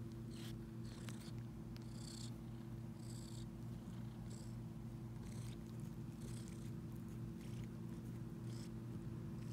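Cat purring steadily while suckling on sheepskin fur as if nursing, with short soft sucking sounds about once a second.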